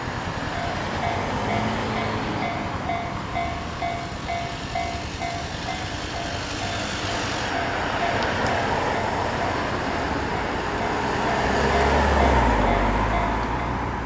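Japanese railway level-crossing warning bell starts about half a second in and rings on with a steady, repeating electronic ding as the barriers come down. Road traffic runs underneath, and a car passing close near the end is the loudest moment.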